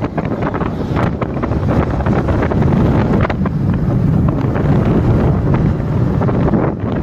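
Wind buffeting the microphone of a phone carried on a moving vehicle: a loud, steady low rumble with gusty flutter, and road and vehicle noise underneath.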